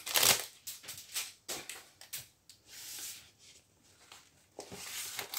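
Clear plastic wrapping and a rolled diamond-painting canvas being handled: intermittent crinkling and rustling as the wrap comes off and the canvas is unrolled, with a brief lull past the middle.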